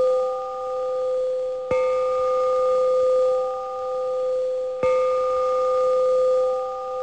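A bell struck twice, about two seconds in and again near five seconds, each strike ringing on in a clear, steady tone that wavers slowly as it fades; the ring of a strike just before carries on at the start.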